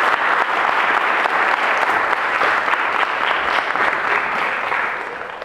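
Audience applauding, a steady clatter of many hands clapping that dies away near the end.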